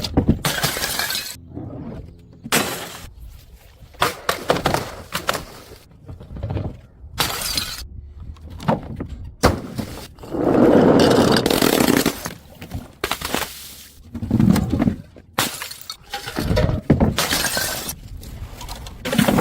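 Glass bottles smashing and shattering one after another, a dozen or so separate crashes, with a longer, louder crash about ten seconds in.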